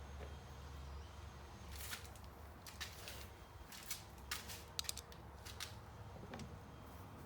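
Small parts being handled during reassembly of a car door's trim: a scattered series of short, sharp clicks and taps, about eight of them, a couple in quick pairs, between roughly two and six seconds in.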